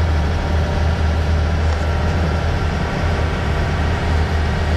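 A fishing charter boat's engine running with a steady low drone and an even hiss above it.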